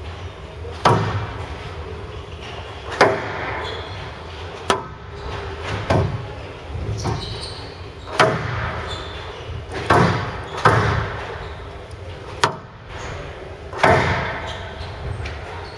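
Squash rally: the ball cracking off the rackets and the court walls, a sharp hit every second or two, about nine in all, each ringing out briefly in a large, echoing hall.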